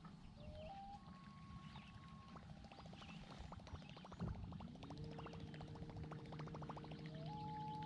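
Whopper Plopper topwater lure being reeled across calm water, its spinning tail churning the surface in a rapid run of faint ticking plops that grows louder over a few seconds. A steady low music drone comes in about five seconds in.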